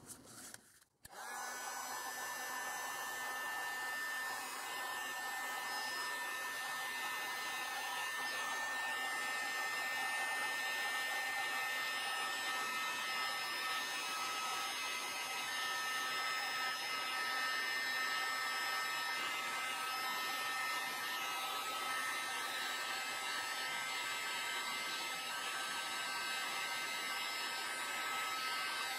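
Electric heat gun switched on about a second in, then running steadily, a blowing rush with a steady whine, as it shrinks heat-shrink tubing onto a rubber coolant hose.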